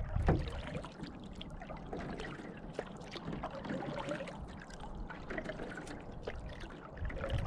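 Water trickling and dripping with small splashes beside a canoe, like water running off a paddle. A low wind rumble on the microphone dies away about half a second in.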